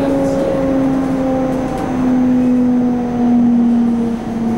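Electric multiple unit (MTR Ma On Shan Line C-Train) running, heard from on board: a steady whine from the traction equipment over rumbling running noise, its pitch slowly stepping down as the train slows.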